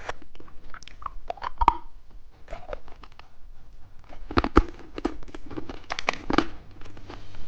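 Plastic candy packaging handled and opened: crinkling, tearing and sharp plastic clicks, irregular, with the loudest clicks about a second and a half and four and a half seconds in.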